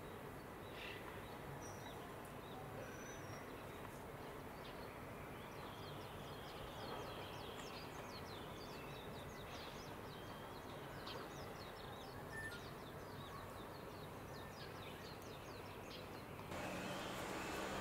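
Outdoor background noise with small birds twittering in quick runs of short high chirps through the middle. About a second before the end, a louder steady rushing noise comes in.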